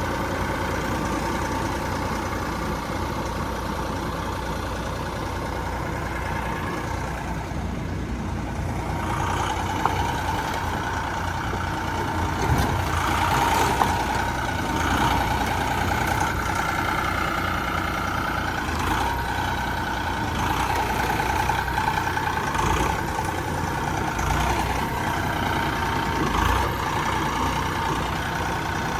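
Vermeer SC48TX stump grinder's engine running steadily. From about ten seconds in it turns rougher and louder in uneven stretches, with a few sharper peaks.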